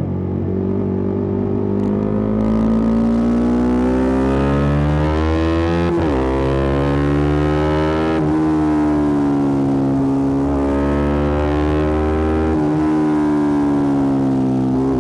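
Yamaha R125's single-cylinder four-stroke engine through a Black Widow aftermarket exhaust, accelerating through the gears. The engine note climbs, drops sharply at gear changes about six and eight seconds in, then holds a fairly steady pitch with a slight dip and a small break near the end.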